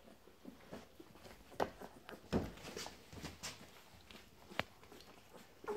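A mother dog and her young puppies moving about on soft bedding in a whelping box: scattered soft scuffs, rustles and knocks, with a heavier thump a little past two seconds in.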